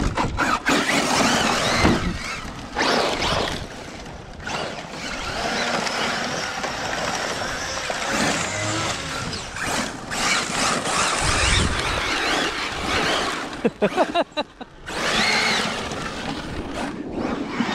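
Traxxas Maxx Slash RC truck's brushless electric motor whining up and down with the throttle as it spins donuts, over a steady hiss of dirt and gravel spraying from the tyres. The level dips briefly a few times where the throttle is let off.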